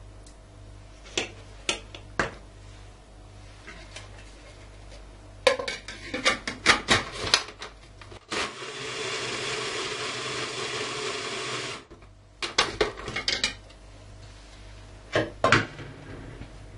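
A spoon clinks against the bowl, then plastic and metal parts of an electric mini food chopper clatter and click as the lid goes on. About eight seconds in, the chopper runs steadily for about three and a half seconds, blending an avocado and yogurt cream, and cuts off. More clicks follow as it is handled afterwards.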